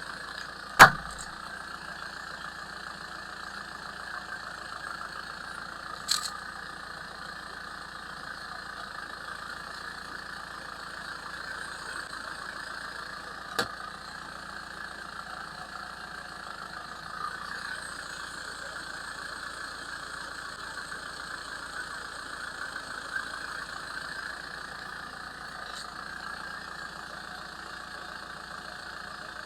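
A steady machine-like drone, with a few sharp cracks or snaps over it; the loudest crack comes about a second in, and fainter ones follow several seconds apart.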